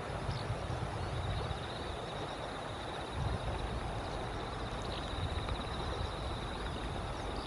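Wind rumbling on the microphone, with a steady high, finely pulsed trill throughout and a couple of faint short chirps.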